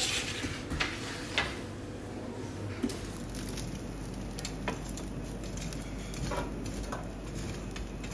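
Cooking at a street food stall: a steady sizzling hiss with a few light clicks and taps of utensils or pans scattered through it.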